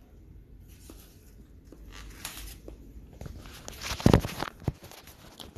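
Rustling and light knocks from a phone being handled and moved, with one loud thump about four seconds in.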